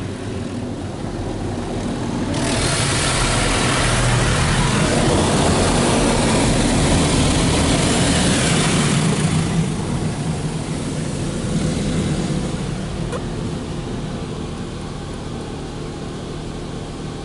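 High-pressure water jets of a car wash's rocker panel blast hitting the lower sides of the car, heard from inside the car. A loud hiss of spray comes in suddenly about two seconds in and dies down after about seven seconds, over a steady low rumble of machinery.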